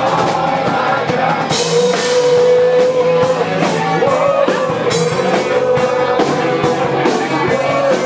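Rock band playing live: drum kit keeping a steady beat under guitars, with a singer holding long, wavering notes.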